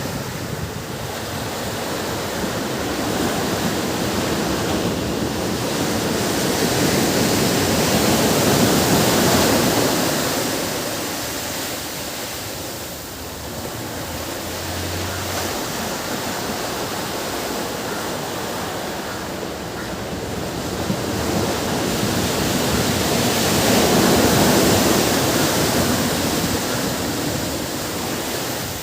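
Ocean surf washing on a beach: a continuous rush of waves that swells up twice, about fifteen seconds apart, and eases back between.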